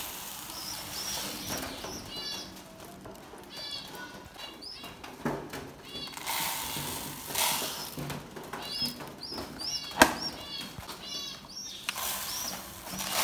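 Grain pouring and rattling from a plastic scoop into a plastic bird feeder, in patches, while small cage birds chirp over and over in short calls. One sharp click about ten seconds in.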